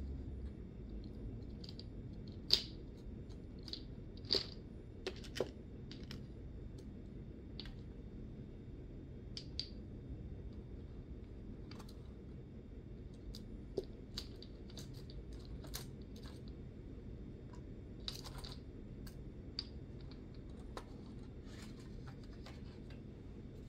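Irregular clicks and taps of nail polish bottles being picked out of a crowded rack and set down on a table, some bottles knocking together; the loudest clicks come about two and a half and four and a half seconds in.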